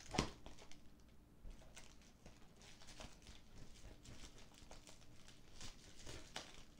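Faint scratching and rustling of fingers picking at and peeling tape off a packaging box, with scattered small clicks and one sharper click just after the start.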